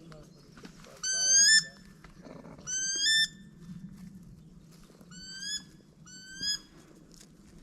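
Wood duck call blown four times, each a short squeal rising in pitch; the first two are the loudest.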